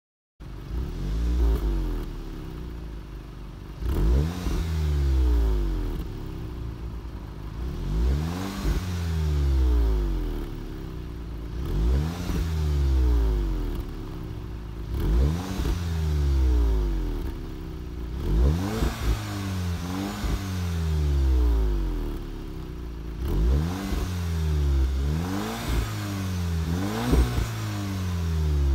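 2018 Volkswagen Golf R's turbocharged 2.0-litre four-cylinder revved repeatedly at a standstill through its quad-tip exhaust in Comfort mode. Each rev rises and falls back to idle, about every three to four seconds.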